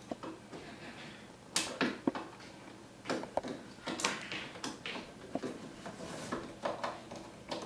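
Irregular clicks and knocks of hard plastic and metal parts being handled and set in place, a few sharp ones a second or so apart.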